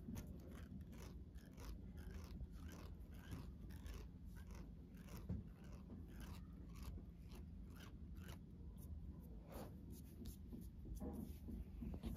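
Twisted cotton thread working over the skin in upper-lip threading: a faint, quick run of short rasping snaps, about two to three a second, as the thread plucks out the hairs.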